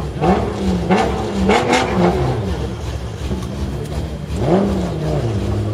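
4x4 SUV engine revved hard, up and down about five times, with a lull a little past halfway, as it spins its tyres in a smoky burnout.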